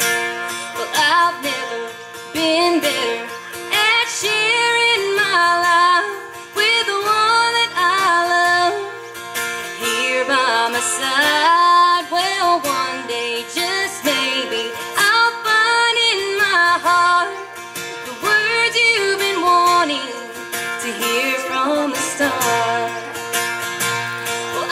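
Live acoustic song: a woman singing over strummed acoustic guitar.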